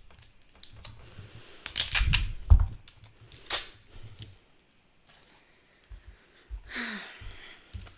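Sticky slime being handled and worked into a plastic container: a string of small clicks and pops, densest and loudest about two seconds in.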